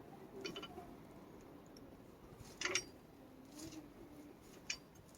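A few faint, sharp metallic clicks and clinks of hand tools on nuts and studs, the loudest about two and a half seconds in.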